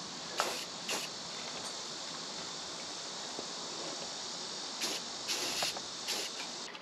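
Steady outdoor chorus of crickets or similar insects, with a few short hisses of an aerosol spray-paint can near the start and again about five seconds in.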